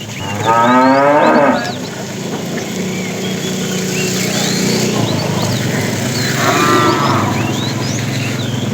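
Cow mooing twice: a loud call about half a second in that lasts about a second, and a shorter one about two-thirds of the way through. Birds chirp throughout.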